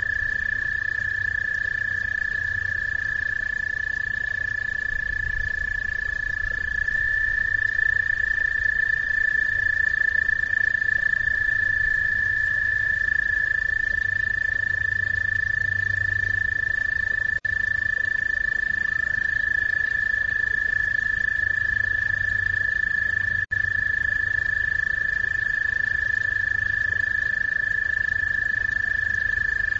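Frogs calling in a continuous high trill with no break, several voices overlapping at slightly different pitches.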